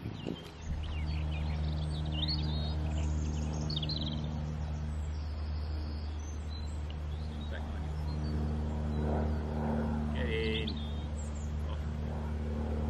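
A steady engine drone of unchanging pitch that sets in about half a second in, with birds chirping over it now and then.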